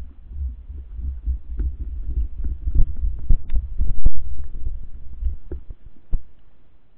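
Low, throbbing rumble of water surge picked up by an underwater camera in its housing, with scattered clicks and knocks. The loudest is a sharp knock about four seconds in, as the baited rig jerks.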